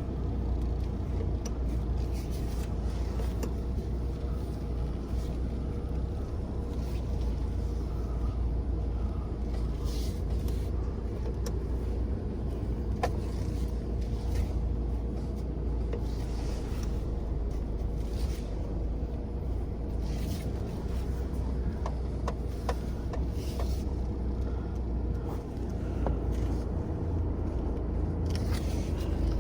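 A car running as it is driven, a steady low rumble with scattered light clicks and rattles.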